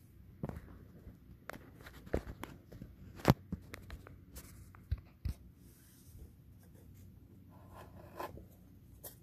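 Irregular soft clicks and brief rustles of handling noise on a handheld recording device, with one sharper click about three seconds in.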